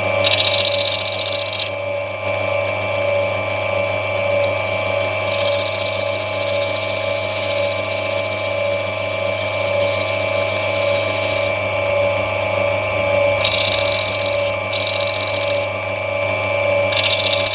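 Lapidary grinding machine's motor running steadily, with a hissing grind each time the opal is pressed onto the spinning wheel to rub back its back: a long spell of several seconds in the first half, then several shorter ones of about a second.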